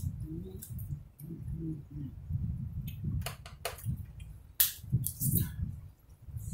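Crab leg shells cracking and snapping as they are pulled apart by hand, with several sharp cracks between about three and five and a half seconds in, over low chewing and handling sounds.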